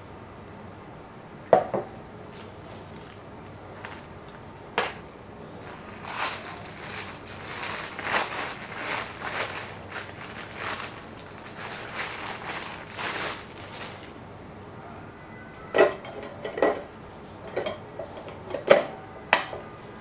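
Clear plastic wrapping crinkling as it is handled for several seconds in the middle. Before and after it come a few sharp clicks and knocks as the plastic grinder body and its clear lid are handled; a quick run of them comes near the end.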